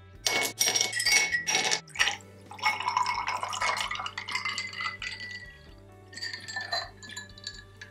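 A cold drink poured from a jug into a glass of ice cubes, the ice clinking against the glass, with sharp clinks in the first two seconds and again near the end. Background music plays underneath.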